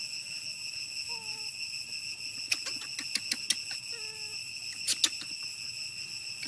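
Steady high-pitched drone of an insect chorus, broken by a run of sharp clicks in the middle and a double click about five seconds in, with two faint short calls.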